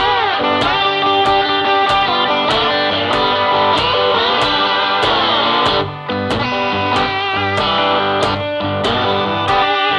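Background music: guitar-led track over a steady beat, with bending guitar notes.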